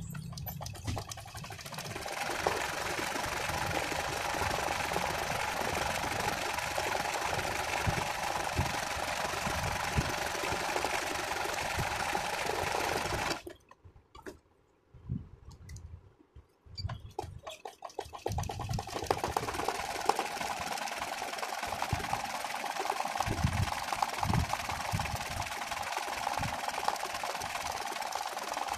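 Janome Secio 8200 sewing machine running fast, stitching a zigzag satin stitch for free-hand embroidery. It stops for a few seconds about halfway through, then starts again and runs on.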